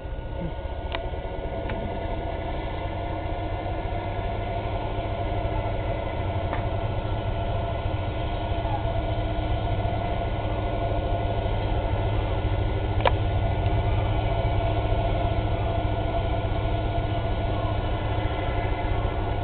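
A fishing boat's diesel engine running steadily under load as the boat breaks through harbour ice, slowly getting louder, with a few sharp cracks here and there.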